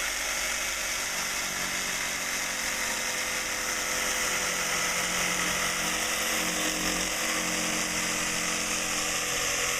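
Power tool running steadily while cutting a hole.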